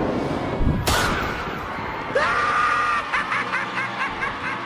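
A sharp hit about a second in, then a high-pitched laugh that breaks into quick repeated giggling notes.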